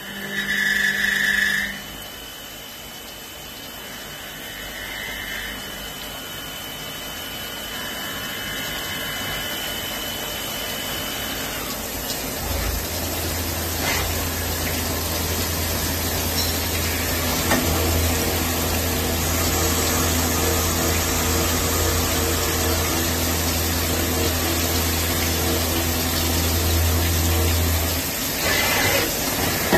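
Swiss-type CNC lathe machining under flood coolant: a steady hiss of coolant spray over the running machine. A low hum with steady tones above it comes in about twelve seconds in and holds, and a short loud tone sounds at the very start.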